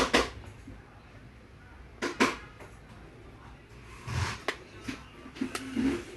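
Sharp clicks and knocks from hard objects being handled: one right at the start, a quick pair about two seconds in, then a few more from about four seconds on.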